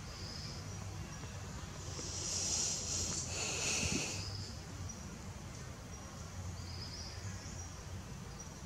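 Outdoor ambience: a steady low rumble under high-pitched chirring that comes and goes, swelling louder for about two seconds in the middle.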